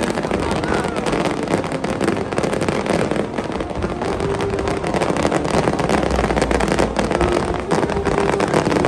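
Aerial fireworks going off overhead: a continuous crackle from many small bursts, with a deeper rumble about six seconds in.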